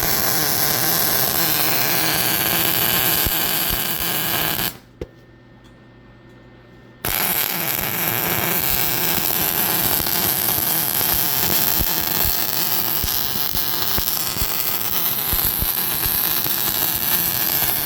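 Electric welding arc hissing and crackling steadily. The arc breaks off about five seconds in for roughly two seconds, then strikes again and runs on.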